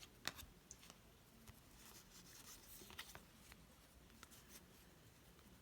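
Near silence with faint clicks and soft rustles of trading cards being handled and slid one behind another. The sharpest tick comes just after the start.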